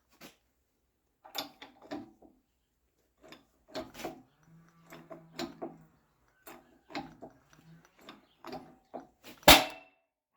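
Irregular knocks, clicks and clatter, as of objects being handled and set down, with one loud sharp knock near the end.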